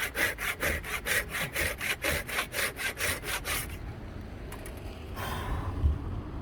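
Hand saw cutting a dead-wood log with quick, even back-and-forth strokes, about five a second, that stop about three and a half seconds in.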